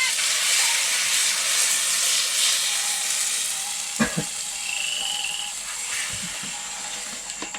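Walleye fillets frying in a pan with a steady sizzle, with two short knocks from a utensil, about four seconds in and near the end.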